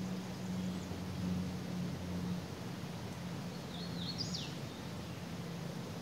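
Creek water running steadily over rocks, with a low steady drone underneath. About four seconds in a bird calls once: a couple of short high notes, then a quick whistle dropping in pitch.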